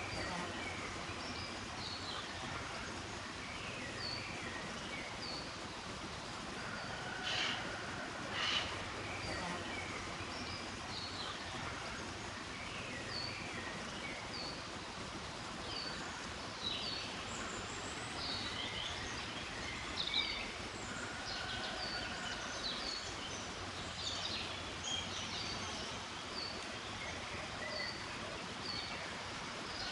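Wild birds calling in woodland: many short, high chirps repeating every second or two over a steady hiss, with two louder sharp calls about seven and eight and a half seconds in.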